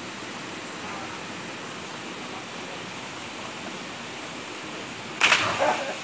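A person jumping off a cliff and hitting the water of a deep pool: one sudden loud splash a little after five seconds in, with a brief churning tail, over a steady rushing background.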